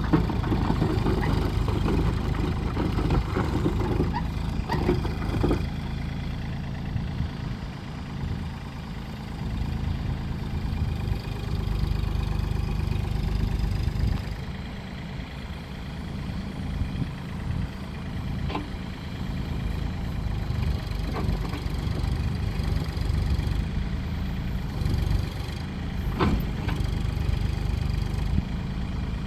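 Hyundai Robex35Z-9 mini excavator's diesel engine running, its sound rising and falling, with a few short knocks now and then.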